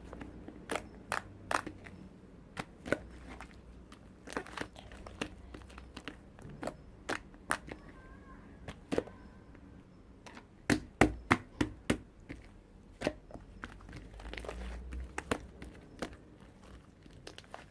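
Handling noise: irregular sharp clicks and crinkling throughout, loudest in a quick run of clicks about eleven seconds in.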